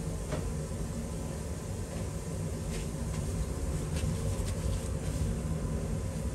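Steady low rumble of laboratory ventilation, with a few faint light clicks.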